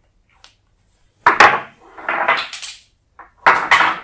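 Wooden beads clacking and rattling against each other as they are threaded onto a cord and pushed along it, in three short clusters of clatter starting a little over a second in.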